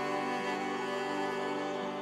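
Slow, calm background music of long held notes, with a few gentle note changes and no beat.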